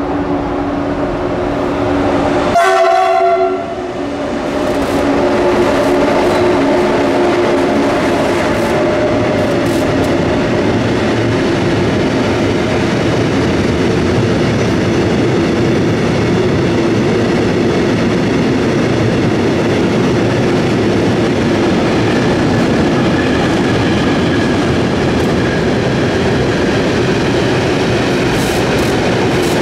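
An intermodal freight train passes close by: a short horn blast about three seconds in, then the steady rolling noise of container and trailer wagons going by.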